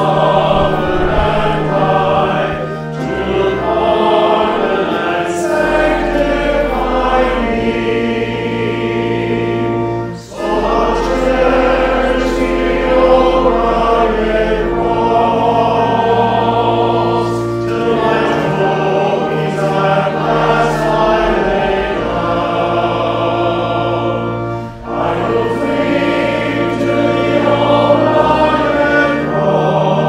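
Congregation singing a hymn together over long-held bass notes of the accompaniment, with two short breaks between lines about ten and twenty-five seconds in.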